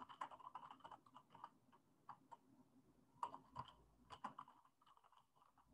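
Computer keyboard typing: faint, irregular keystrokes that thin out near the end.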